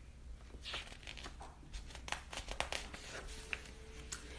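Pages of a picture book being turned by hand: a run of quiet paper rustles and small clicks.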